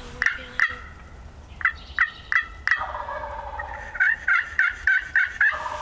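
Wild turkey yelping: three runs of short, sharp yelps at about three a second, the last run the longest with six notes.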